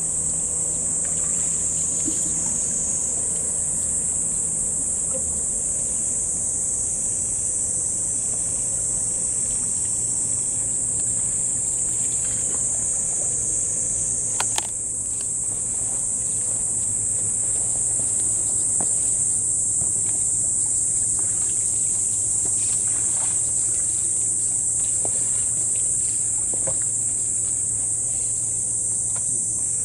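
Steady high-pitched drone of a summer insect chorus, with a faint low hum beneath and a single sharp click about halfway through.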